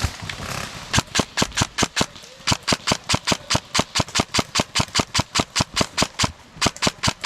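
Airsoft gun firing a rapid string of shots, about seven a second, starting about a second in, with a brief pause just after two seconds before the shots resume.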